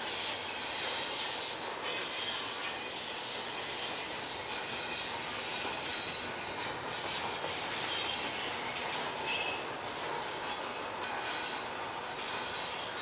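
Railroad cars rolling through a curve, their steel wheels squealing against the rails over a steady running noise, with short high squeals coming and going.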